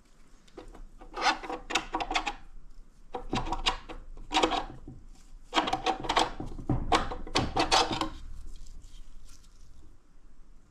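Transmission parts being handled, scraping and rubbing against each other in several rough bursts between about one and eight seconds in.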